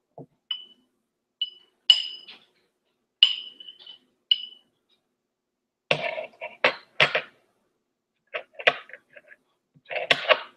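A metal spoon clinking against a bowl, five light strikes each with a short high ring. These are followed by a denser run of rougher noises.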